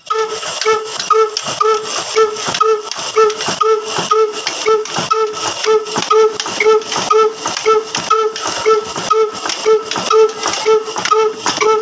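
Ruston Hornsby single-cylinder stationary diesel engine running steadily, with an even beat of pitched exhaust pulses about two a second.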